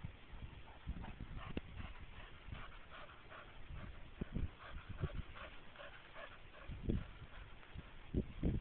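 Dog panting quickly after retrieving a frisbee, several breaths a second, with a few low thumps near the end.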